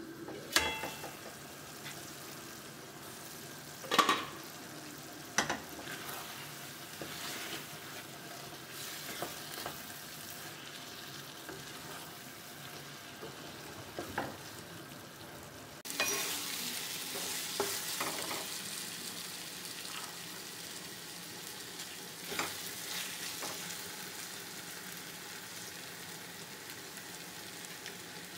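Crumbled urad dal fritters and tomato sizzling in a stainless steel pan while a wooden spatula stirs and scrapes, with a few sharp knocks and clinks of the lid and spatula against the pan. The sizzling gets louder about halfway through.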